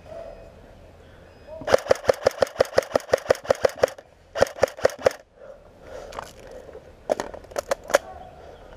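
Airsoft rifle firing: a rapid string of about sixteen sharp shots at roughly seven a second, then a short burst of four, then a few more shots near the end.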